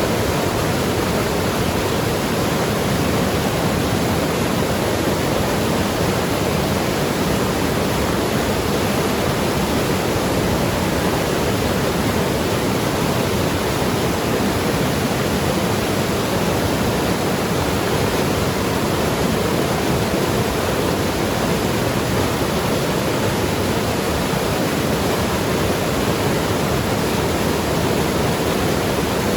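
Mountain river rushing and tumbling over rocks, a steady, unbroken wash of water noise.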